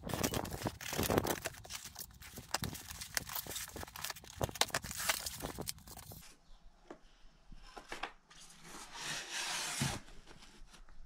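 Packaging being opened by hand: packing tape slit with a utility knife and torn, with many short scrapes, clicks and taps. Later comes a longer stretch of rustling as a cloth bag and foam packing are handled.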